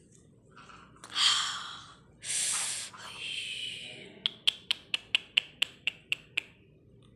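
Indian ringneck parakeet, agitated and biting, gives a loud harsh screech and then a hissing squawk. A quick run of about ten short, sharp clicking chirps follows, about four or five a second.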